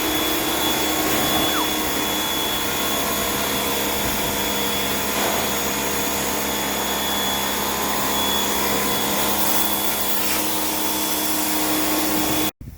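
Electric power tool motor running steadily at a constant speed, then cut off abruptly near the end.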